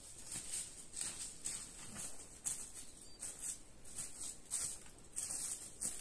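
Footsteps crunching through snow, about two steps a second.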